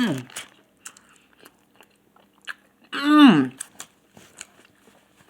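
A man chewing a mouthful of spicy fried chicken sandwich, with small wet clicks and crunches of the mouth. He makes two short hummed vocal sounds, one right at the start and a louder one about three seconds in.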